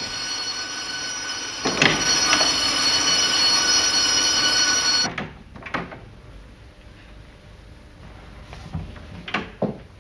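Electric school bell ringing to mark the end of lessons, a steady ring of several high tones that cuts off suddenly about five seconds in. A few soft knocks follow.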